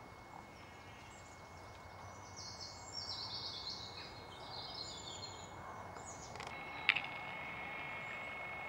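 Songbirds singing in quick, high chirping phrases through the middle, over a steady low background rumble of outdoor ambience. A single sharp click comes about seven seconds in.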